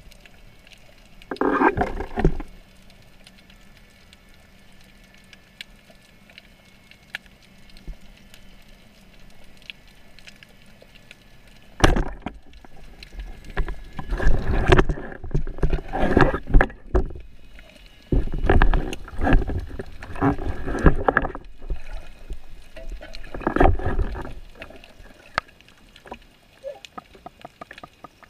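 Underwater audio: a short burst of water noise about two seconds in, then a single sharp crack about twelve seconds in, the speargun firing its shaft. After it come repeated bursts of sloshing, gurgling water as the diver moves and hauls in the catch.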